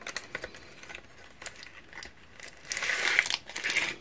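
Light clicks and rustles of a small cardboard box being opened, then the clear plastic sleeve holding thin charcoal sticks crinkling for about a second near the end, the loudest sound here.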